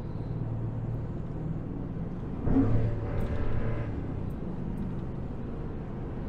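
Ford 6.2L gasoline V8 pickup truck engine running while driving, a steady hum with a louder surge a couple of seconds in that lasts about a second and a half.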